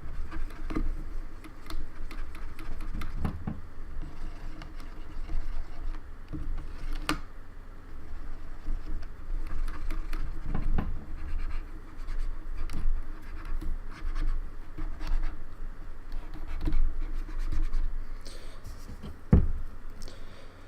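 A wet cotton swab scrubbing and scratching around the keys of a Logitech K360 keyboard to free sticky keys, with scattered clicks and a couple of sharp ones as keys are handled.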